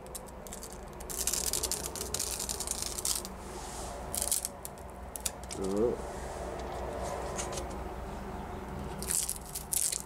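Blue painter's tape being peeled off a freshly painted wooden sign: a few stretches of ripping, with clicks and rustling between them, the tape lifting some of the wood surface as it comes away.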